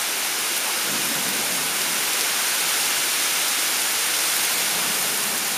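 Heavy thunderstorm rain pouring down, a steady even hiss.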